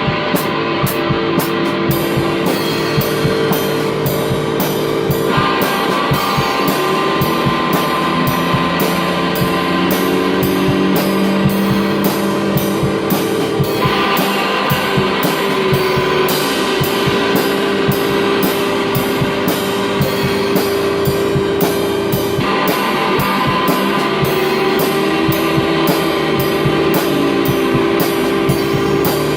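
Djent metal band playing: heavy electric guitars over fast, dense drum-kit hits and cymbals, the riff changing a few times.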